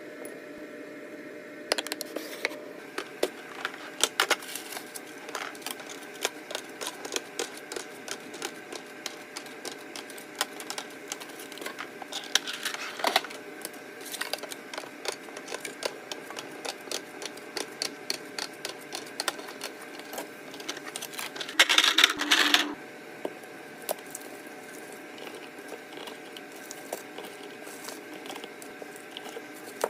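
Food items and plastic containers being handled and set down on refrigerator shelves: many light clicks and taps, with a louder crinkling rustle of packaging lasting about a second just past two-thirds of the way in.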